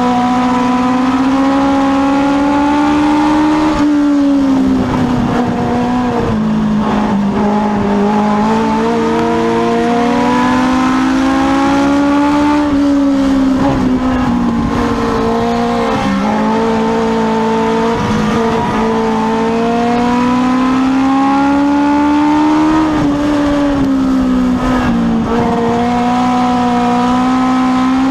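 Legends race car's motorcycle-derived four-cylinder engine at racing speed, heard from inside the cockpit. Its pitch climbs along each straight and drops as the driver lifts for the turns, about every nine to ten seconds, lap after lap.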